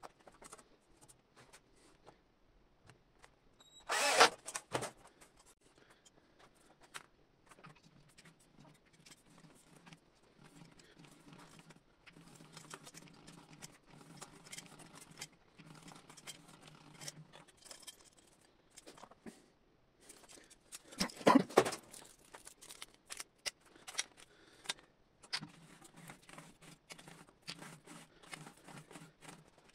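Rotary sheet-metal roller machine turning a galvanized steel ring through its rollers: steady clicking and metallic rattling with a faint low hum. Two louder clatters come about four seconds in and again about twenty-one seconds in.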